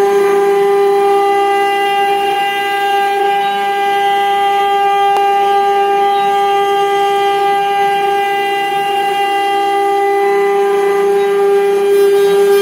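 Spindle router of a Legacy Explorer CNC machine running with a steady whine while a tapered ball-nose bit carves a 3D raster pass. A faint click about five seconds in.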